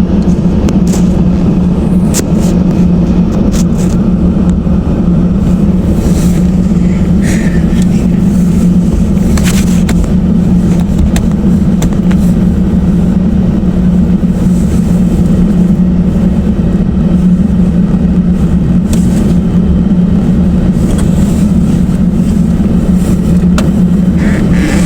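A loud, steady, low-pitched mechanical drone, with an unchanging hum and a rumble underneath, heard as an unexplained weird noise.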